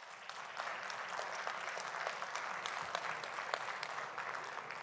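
Audience applauding: many hands clapping, swelling over the first second, holding steady, then thinning out near the end.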